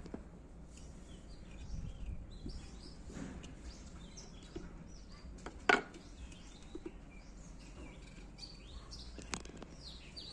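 Small birds chirping repeatedly in the background over faint scraping of a knife cutting through ripe papaya slices on a steel plate, with a sharp click about halfway through and a smaller one near the end.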